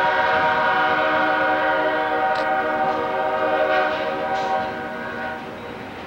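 Diesel locomotive air horn sounding in one long, loud chord as a passenger train approaches. It fades and stops about five seconds in, leaving the quieter run of the train.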